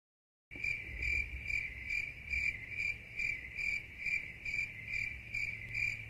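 Cricket chirping sound effect, a steady high chirp pulsing a little over twice a second, used as the comic 'awkward silence' cue. It starts abruptly about half a second in.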